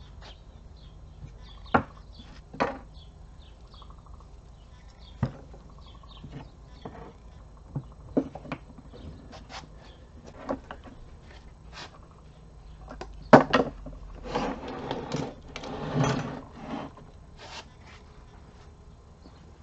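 Hand work on an NP229 transfer case: scattered sharp clinks and knocks of its parts being handled, with a louder clatter of knocks about thirteen seconds in and a few seconds of rattling and scraping after it.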